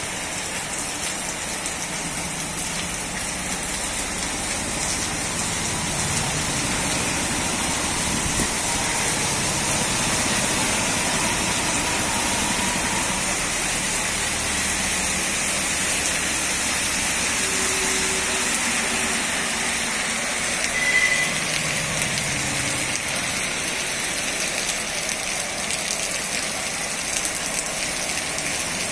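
Heavy rain pours steadily onto a paved street and grows a little heavier after the first few seconds. Vehicles swish through the water on the road. A short high tone briefly rises above the rain about two-thirds of the way through.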